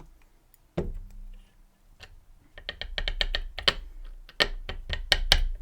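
Small metal clicks and taps of tools and lock parts as a dimple lock cylinder's pin stack is worked out during disassembly. One click comes first, then from about halfway a quick irregular run of sharp taps.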